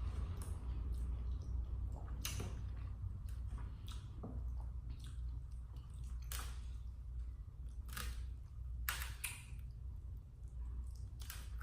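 Close-up eating sounds: a person chewing, with wet smacks and mouth clicks coming at irregular moments, over a steady low hum.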